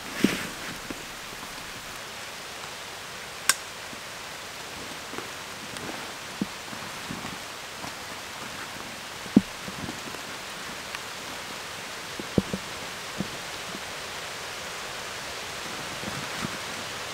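Steady rain falling on the surrounding foliage, an even hiss with scattered drops tapping close by and a few sharper knocks, the loudest about nine seconds in.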